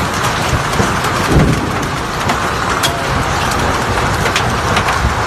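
Heavy hail falling: a dense, steady rush of hailstones striking hard surfaces, with scattered sharper cracks from single stones.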